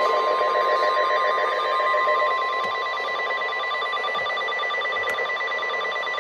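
NOAA Weather Radio warning alarm tone: one long, steady, piercing tone over radio hiss. It is the attention signal sent just before an Emergency Alert System warning is read out.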